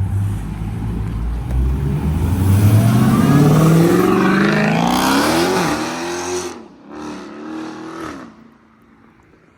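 A muscle car's engine accelerating hard, its note climbing steadily for about five seconds before dropping at a gear change, then rising briefly again a couple more times as it fades away.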